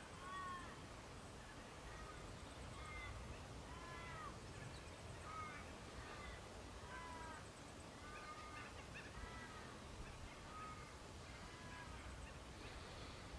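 Distant birds calling: a long series of short rise-and-fall calls, one every half second to a second, faint over a low rumble.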